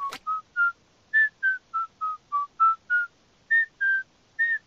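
A whistled jingle: a quick run of about fifteen short notes that hop up and down in pitch, in three little phrases.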